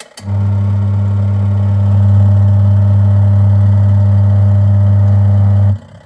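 Wash motor of a Twin Spin XPB36-388S twin-tub washing machine turning the pulsator with a loud, steady vibrating hum that starts abruptly and cuts off after about five and a half seconds. The owner suspects a drive belt that is going bad.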